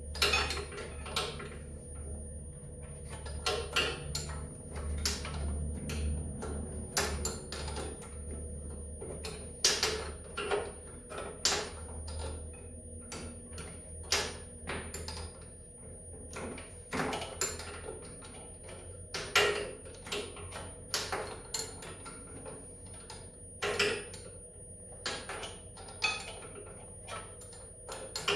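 Irregular metallic clicks and knocks of a hand wrench working a stubborn nut on a snowmobile engine, over a low steady hum that stops about halfway through.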